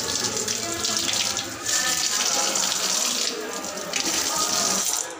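Water running from a steel tap and splashing onto cupped hands. The rush dips briefly twice and cuts off near the end.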